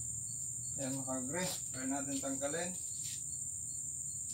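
Steady high-pitched insect drone, with a faint chirp about twice a second. A person's voice speaks a few indistinct words about a second in, for under two seconds.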